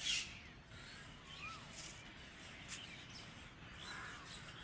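Birds chirping and calling faintly over quiet rural morning ambience.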